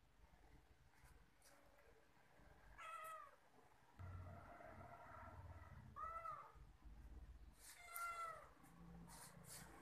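A cat meows three times, each call rising then falling in pitch, the third the longest. A low rumble runs underneath from about four seconds in.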